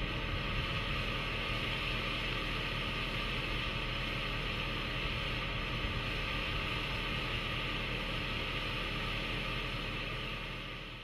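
2011 Ford F-150 SVT Raptor's 6.2-litre V8 idling under a steady hiss, fading out near the end.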